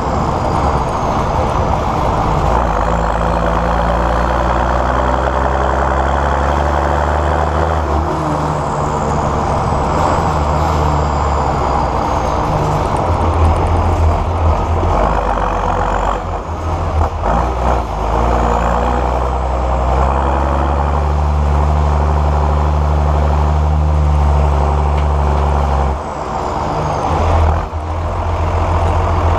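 John Deere 6910S tractor's diesel engine running hard and steady, its note shifting a little, with a faint high whistle sweeping up and down above it. The engine eases off briefly about halfway through and again near the end, then picks up again.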